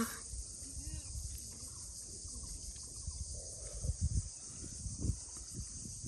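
Insects chirring steadily in a high, even hiss, with low squelches and thumps of hands digging in wet mud, loudest about four and five seconds in.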